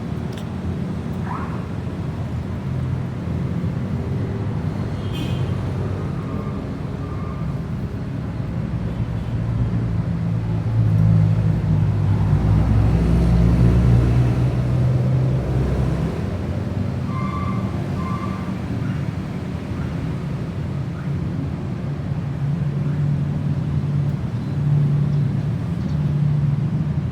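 A steady low rumble, like road traffic, swelling somewhat about halfway through, with a few brief faint higher tones.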